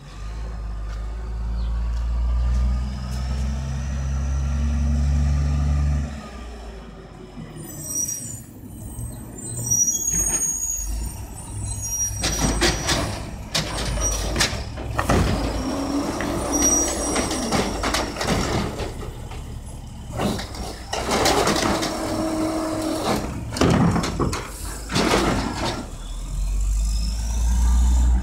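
Mack LE garbage truck with an Amrep automated side-loader body: its diesel engine runs loud as the truck pulls up, with squeals and hisses from the air brakes. From about halfway, a long stretch of knocks and clatter over the running engine as the carts are picked up and dumped, and the engine rises again near the end.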